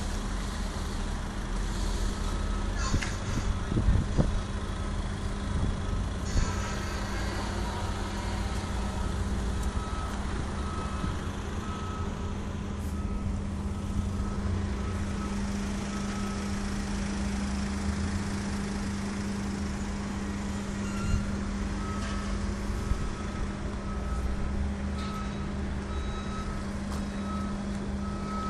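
Concrete block production machinery running with a steady hum, and a warning beeper sounding a series of short, evenly spaced beeps at the start and again near the end. A few knocks come in the first few seconds.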